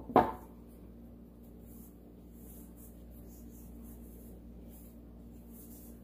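A small stretched canvas set back down on a table with one sharp knock at the start. After it, only faint soft rustles over a steady low hum.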